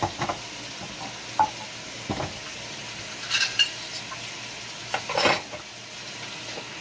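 A utensil stirring and scraping in a bowl, with a few light clinks of dishes and cutlery, over a steady hiss.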